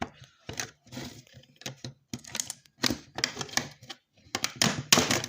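Plastic casing of a piece of old electronics being prised apart by hand: irregular clicks and short scraping, cracking noises as the plastic clips holding it are worked loose, loudest near the end.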